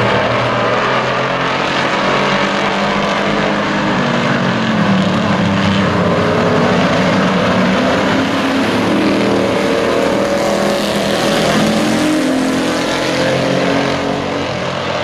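Several pickup-truck race engines running together as the pack laps the oval, their engine notes rising and falling as the trucks accelerate and lift through the turns.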